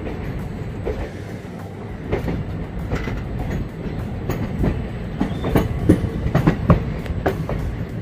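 Train wheels clattering over the rail joints with a steady low rumble, heard from on board the moving train. The clacks come thicker and louder in the second half.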